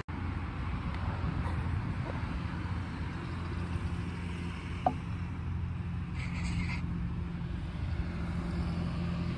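Steady low mechanical hum, like an idling engine or machine, with one short click about five seconds in.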